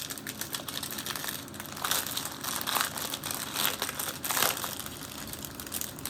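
Small plastic bags of diamond-painting gems crinkling as they are handled, with irregular rustles and clicks.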